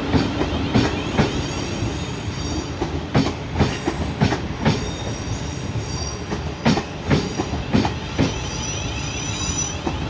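Class 450 Siemens Desiro electric multiple unit pulling out past, its wheels clacking over rail joints and pointwork, often two clacks close together, with a faint high squeal from the wheels.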